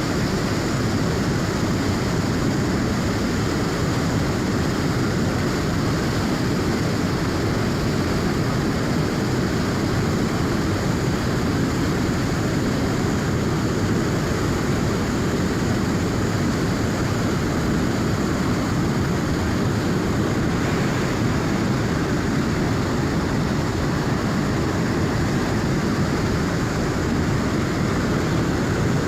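River running at high flow: a steady, unbroken rush of water, heaviest low in pitch with a lighter hiss above.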